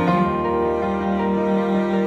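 Background music: slow, sad-sounding instrumental with sustained low string-like notes that change every half second or so.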